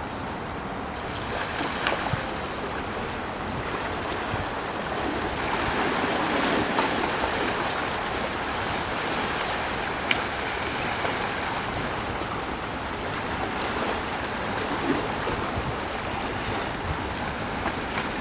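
Waves and churning water with boats passing through rough surf: a steady rushing noise that grows louder around the middle and eases toward the end.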